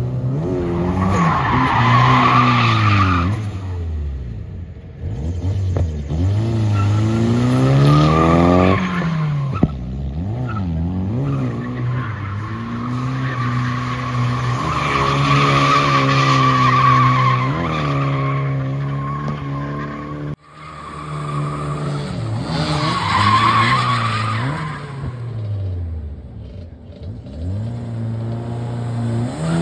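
A Toyota Cressida drift car with a swapped 3S-GTE turbocharged four-cylinder engine revs up and down through repeated drifts. Its rear tyres squeal in several long spells as it slides. The sound cuts briefly about two-thirds of the way through.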